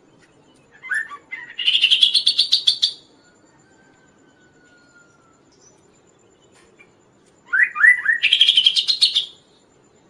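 Chestnut-capped babbler (kaso-kaso) singing: two loud phrases about six seconds apart, each opening with a few short rising notes and running into a fast, even series of high notes, about ten a second.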